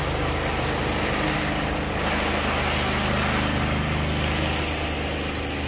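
Engine of a hot-water pressure washer running steadily at constant speed.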